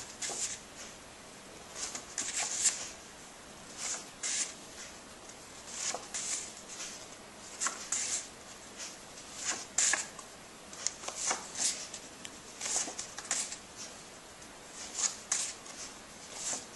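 A stack of paper flashcards being flipped through by hand, one card after another: a short papery swish with each flip, roughly once a second.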